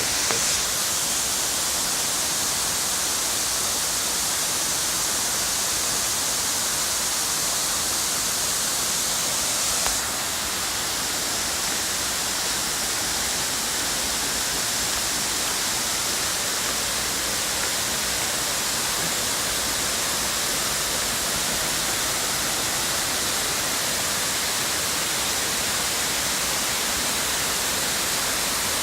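Steady rush of falling water from the Benang Kelambu waterfall, an even hiss with no breaks; it drops slightly in level about ten seconds in.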